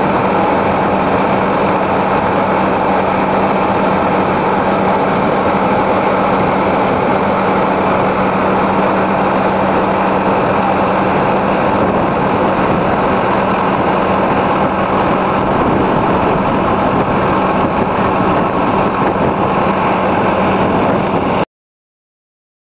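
Fire truck engine running steadily, a constant droning hum under engine noise, as apparatus do while pumping water through large-diameter hose. It cuts off abruptly near the end.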